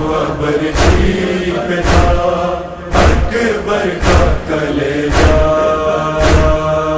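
Men's voices chanting a noha, a mournful Urdu lament, in long held tones, with a deep thud about once a second marking the beat.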